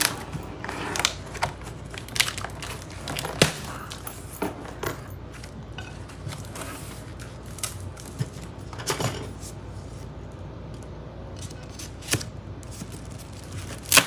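Scattered knocks and clicks with crinkling and tearing while a boxed microwave is unpacked: cardboard and plastic packaging being handled.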